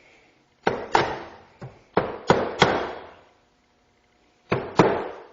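Light mallet taps on an engine's crankcase halves, seating the two sealant-coated halves together. There are about eight sharp taps, each with a short ring: six in quick succession, a pause, then two more near the end.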